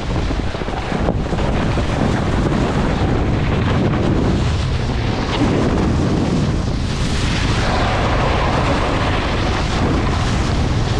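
Loud, steady wind buffeting the microphone: a dense rushing rumble, heaviest in the low end.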